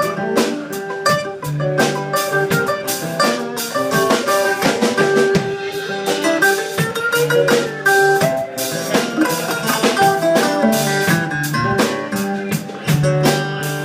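Live band playing an instrumental passage: drum kit hits over held notes from pitched instruments.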